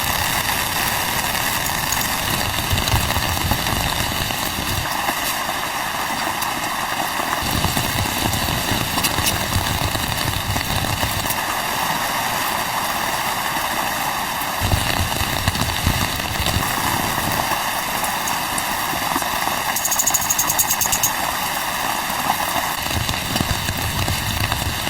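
Steady rain, an even hiss, with low rumbles coming and going every few seconds.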